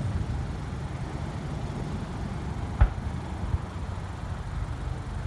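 Car engine idling with a steady low hum, and one firework bang a little under three seconds in, with a fainter pop shortly after.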